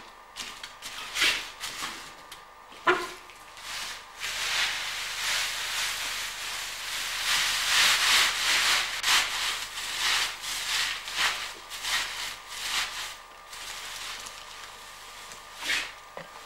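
Dry wood shavings rustling as they are scooped up by hand and packed into an iron basket, with a sharp knock about three seconds in.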